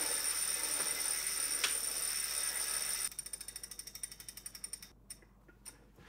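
Wahoo KICKR V5 direct-drive smart trainer coasting after a sprint, with the rider no longer pedalling. Its flywheel whirrs with a high whine for about three seconds, then the freehub pawls on the trainer's cassette click rapidly, slowing and dying away as it spins down.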